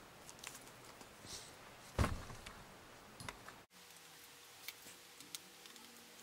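Light clicks and taps of small parts being handled on a MacBook's case, with one louder knock about two seconds in.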